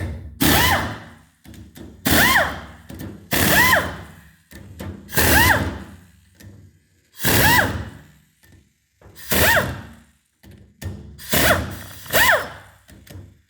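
Pneumatic air tool spinning in short bursts, about eight in all, backing out the rocker arm assembly bolts on a Subaru single-overhead-cam cylinder head. Each burst has a whine that rises and falls in pitch.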